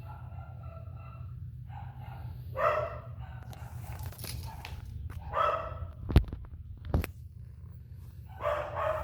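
A pet animal calling several times in short calls, each under half a second, with two sharp knocks between the calls and a steady low hum underneath.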